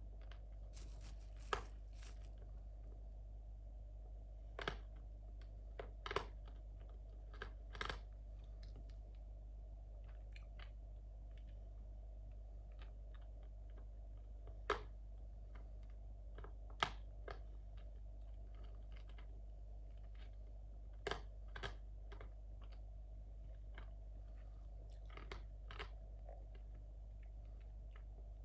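Steady low hum with a scattering of small sharp clicks and taps at irregular times, the loudest two in the middle.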